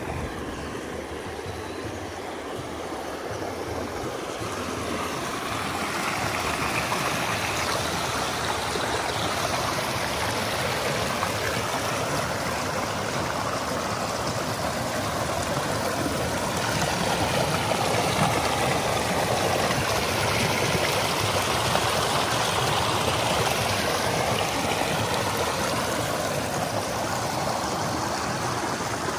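Shallow rocky river flowing over stones: a steady rush and babble of water close by, growing louder about six seconds in.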